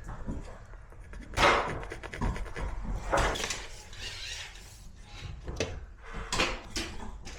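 Scattered knocks, scrapes and rustles of hands-on work, with a louder brief scraping burst about a second and a half in and more around three and six and a half seconds in.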